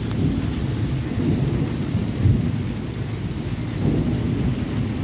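Steady rain with a continuous low rumble of thunder.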